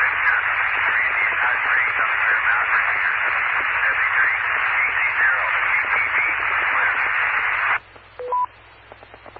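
Heavy radio static through a repeater, as a weak, crusty station checks in: an even hiss with any voice all but buried, cutting off abruptly near the end. It is followed by the repeater's courtesy tone, two short beeps, a low one and then a higher one.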